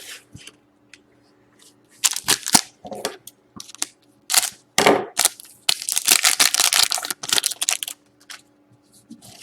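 Trading-card pack and cards being handled by hand: short bursts of crinkling and rustling that pick up into a dense run of crackling near the middle, as a foil pack wrapper is worked open and the cards slide out.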